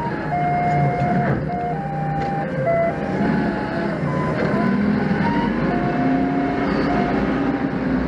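Doosan 4.5-tonne forklift running, heard from its cab, with a whine that steps up and down in pitch every second or so. About five seconds in the engine grows deeper and louder.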